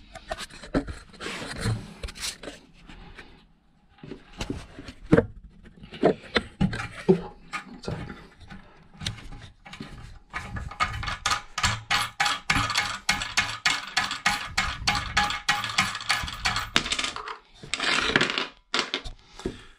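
Cistern-to-pan bolts on a close-coupled toilet being undone by hand: scattered clinks and scrapes, then from about ten seconds in a long run of quick, even clicks, about four or five a second, lasting some six seconds.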